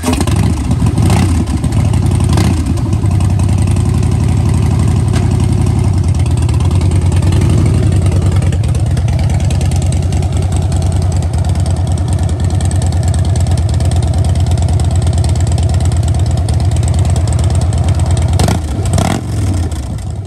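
Harley-Davidson Breakout's 103-cubic-inch V-twin running just after starting, a steady low rumble throughout. Short sharp sounds come twice in the first three seconds and once more near the end.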